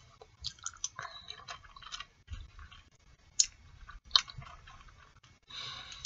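Close-up mouth sounds of boiled artichoke leaves being pulled through the teeth and chewed: soft wet clicks and smacks, with two sharper clicks about three and a half and four seconds in.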